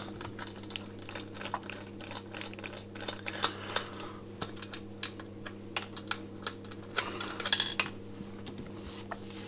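Hand screwdriver working the screws out of a small metal amplifier case: a run of light, irregular clicks and ticks as the tool, screws and small parts meet metal and the bench. About seven and a half seconds in comes a quick cluster of clicks. A steady low hum sits underneath.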